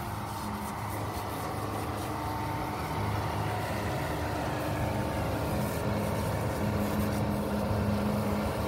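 Steady low mechanical hum with a hissing spray over it as a hose sprays down the rear of a concrete transit mixer, getting a little louder about three seconds in.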